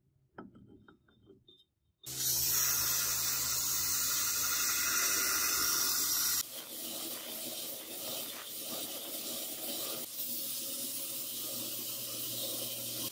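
Belt grinder running and grinding a steel workpiece: a steady grinding hiss over the motor's hum, which starts suddenly about two seconds in. A little after six seconds it drops to a quieter, rougher grind. Before the grinder starts there are a few faint metal clinks.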